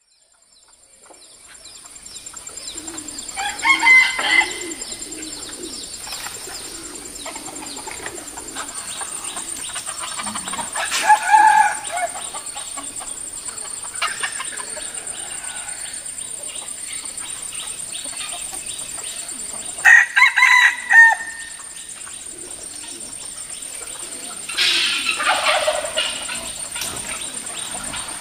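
Roosters crowing four times, several seconds apart, over a steady high-pitched whine; the sound fades in from silence at the start.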